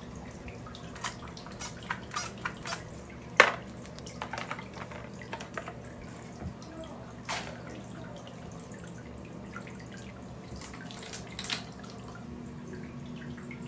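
Water dripping in a filled bathtub, with scattered small clicks and knocks as plastic bath toys and markers are set down on the tub's edge; the sharpest click comes about a quarter of the way in. A faint steady hum lies underneath.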